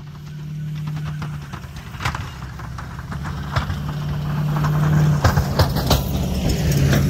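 Ford F250 pickup's engine running steadily as the truck drives toward the camera, growing louder as it nears. Its V-plow blade pushing and throwing snow adds irregular crackling clicks that come thicker in the second half.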